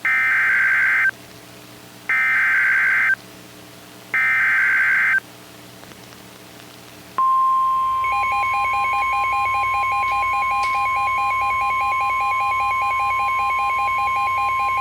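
Emergency Alert System SAME header: three raspy digital data bursts of about a second each, a second apart. A couple of seconds later comes the NOAA Weather Radio 1050 Hz warning alarm tone, a steady high beep held for about nine seconds with a faint rapid pulsing under it. Together these signal that a warning broadcast, here a severe thunderstorm warning, is about to be read.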